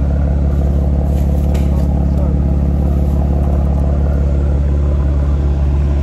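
A vehicle engine idling close by: a steady low drone at an even level throughout. A few faint knocks about a second in, as bags go into a car boot.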